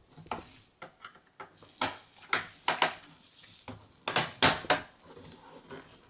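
Mini Phillips screwdriver turning out the screws of a Lenovo ThinkPad L440's bottom cover: a run of small, irregular clicks and scrapes, with a few louder ones about four seconds in.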